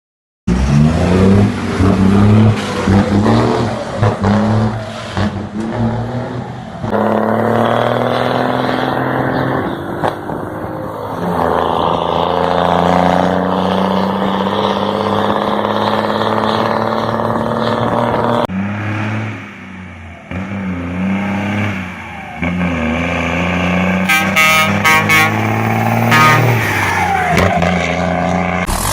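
Iveco truck's diesel engine running and revving, its turbo fitted with a comb insert ('pente') to make it howl. The sound changes abruptly several times as separate clips are cut together.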